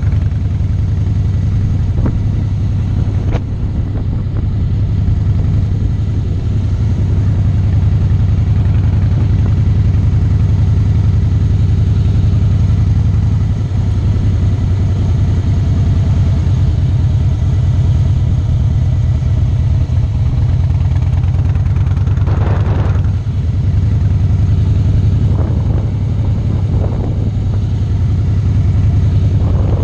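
Harley-Davidson V-twin motorcycle engine running steadily at low road speed, heard close up from the handlebars, its note dipping briefly about three-quarters of the way through.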